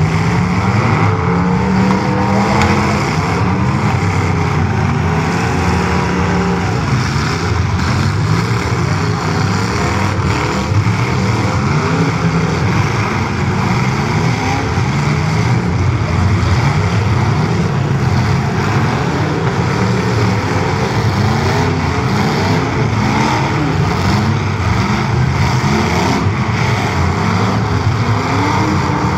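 Several full-size demolition derby cars' engines revving hard, up and down over and over and overlapping, as the cars push and ram one another. The engines are loud and run without a break.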